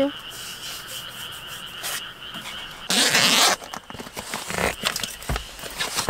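Steady high-pitched night chorus of calling frogs and insects, with a loud half-second burst of rustling about three seconds in and two soft low thumps near the end.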